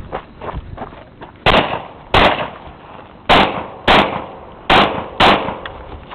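Gunshots from a firearm in a practical-shooting (IPSC) stage: six loud shots in three pairs, the two shots of each pair about half a second apart. Each shot trails off in a short echo.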